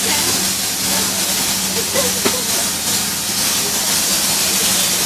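Cabin noise inside a moving bus: a loud, steady hiss of wind and road noise with a low, even hum under it, and a single click about two seconds in.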